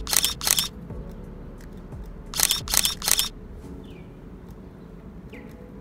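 Camera shutter firing in quick bursts: three shots at the start, then another three about two seconds later.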